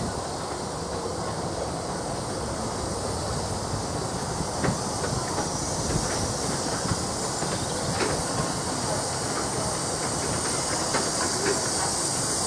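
Miniature 'Maxi-Lucky-Seven'-class 2-4-2 steam locomotive hissing steam as it runs into the platform hauling its carriages, growing slightly louder as it passes, with a few sharp clicks from the wheels on the track.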